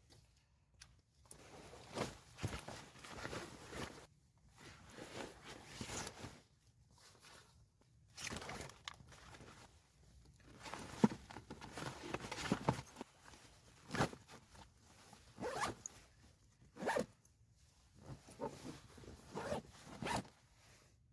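Close, irregular rustling and scraping in many short strokes with brief quiet gaps, like something being handled near the microphone.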